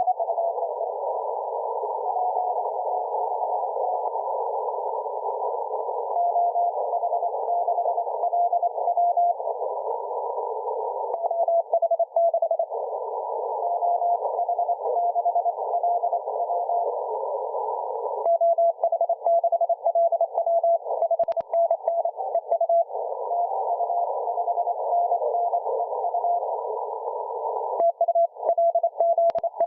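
Morse code (CW) telegraphy heard on a shortwave SDR receiver: a single tone keyed on and off in dots and dashes over a steady band of hiss, as through a narrow CW filter. The hiss and the strength of the keying change several times, with the keying clearest and loudest in the last third.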